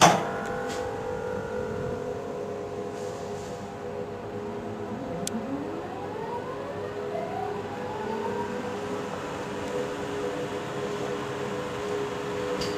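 VR Class Sr2 electric locomotive powering back up after a shutdown: a sharp bang right at the start, then a steady electrical hum, with a whine that rises in pitch from about four seconds in and levels off near the end.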